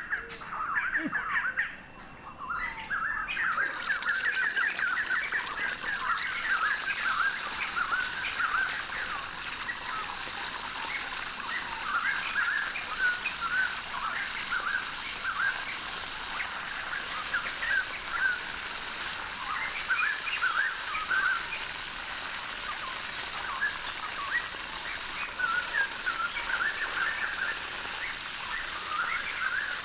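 A whole fish frying in hot oil in a steel wok, a steady sizzle that comes in a few seconds in. Birds chirp busily over it throughout.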